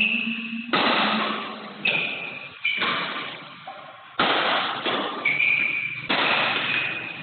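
Badminton rally: rackets striking the shuttlecock about once a second, each hit a sharp crack that echoes in the hall, with shoes squeaking on the court floor between hits.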